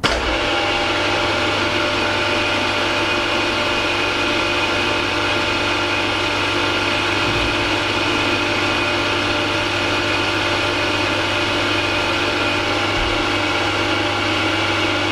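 Milling machine spindle switched on and running steadily at high revs, about 1800 RPM, turning a two-flute slot drill while the cutter is brought down to touch off on brass stock.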